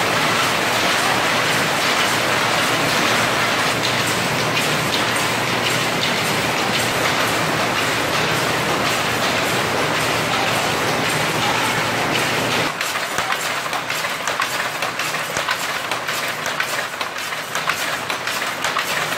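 Silk reeling machinery running with a steady rattling clatter. About two-thirds of the way through the low hum drops away and sharper clicks come through.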